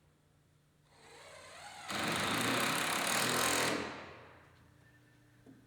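A power drill driving a screw. It runs for about three seconds, speeding up at first, holding steady, then winding down.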